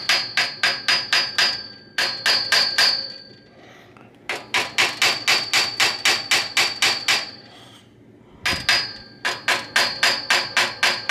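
Claw hammer tapping a vintage bicycle's steel crank arm, about five quick metallic taps a second in four runs with short pauses between. It is tapping the crank in toward the bike to loosen a stuck wedge cotter pin on the spindle.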